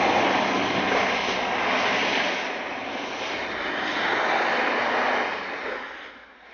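Jeep Cherokee SUV's engine running hard while its tyres churn through deep snow. The sound dips about two and a half seconds in, rises again, then fades out near the end.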